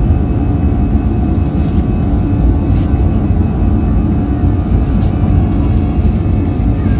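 Airbus A320 cabin noise during the climb after takeoff: the steady rumble of the jet engines and rushing air, low and even, with a faint steady hum over it.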